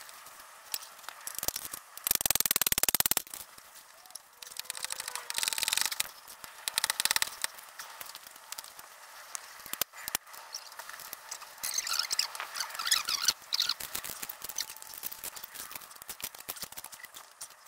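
Metal clicks and scrapes of a motorcycle's stainless slip-on exhaust silencer being worked loose and pulled off its link pipe. There is a loud burst of fast, dense clicking about two seconds in.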